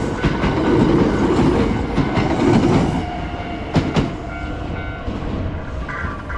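Train passing over a level crossing, its wheels clattering rhythmically over the rail joints. After about three seconds the rumble falls away as the last car goes by, with a final pair of clacks about a second later. A steady tone comes up near the end.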